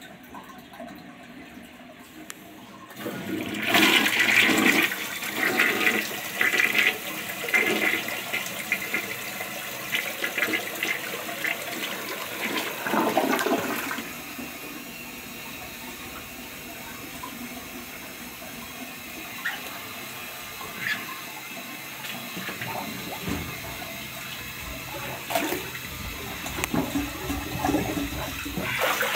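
Toilet flushing: a loud rush of water starts about three seconds in and lasts some ten seconds, then settles into the steady hiss of the tank refilling. Near the end, water sloshes in the tub as a handle is pushed around in it.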